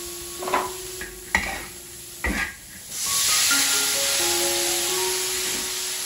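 Metal spatula scraping a large wok a few times as dried shrimp is stirred in oil, then a loud sizzle that starts suddenly about three seconds in as ground pork goes into the hot oil and keeps frying.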